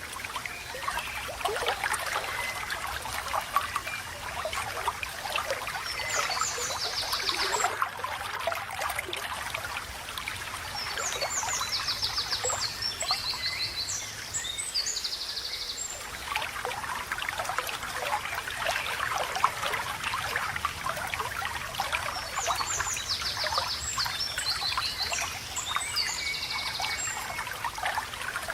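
Water trickling and babbling over stones in a small stream. A songbird sings three short phrases of rapid, repeated high notes: one a few seconds in, one in the middle and one near the end.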